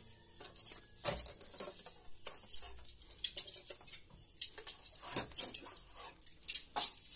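Edible-nest swiftlets twittering: a dense run of rapid, high-pitched chirps and clicks.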